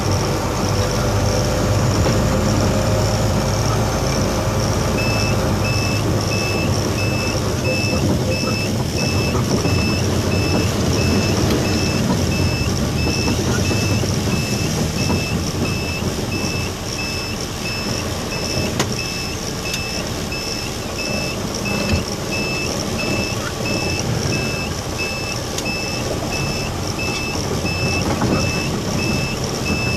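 Dump truck's diesel engine and road noise heard from inside the cab while driving. A regular electronic beeping starts about five seconds in and stops near the end, with a couple of brief knocks in between.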